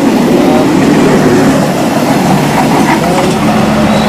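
Remote-control toy train running along its plastic track pulling a long string of wagons: a steady whir from its small motor and wheels.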